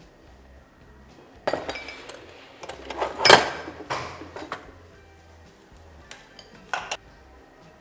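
Dishes and utensils clattering as they are handled and set down: a run of clinks and knocks, loudest a little over three seconds in, then a couple more near the end.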